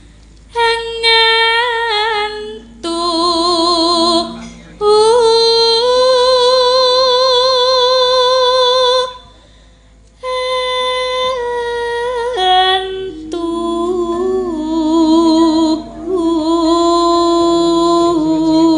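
A sinden, a Javanese female gamelan singer, sings solo in long held notes with a wide vibrato, in several phrases separated by short breaths, over low sustained tones.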